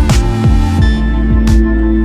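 Electronic background music with a deep, repeating kick-drum beat and held synth notes.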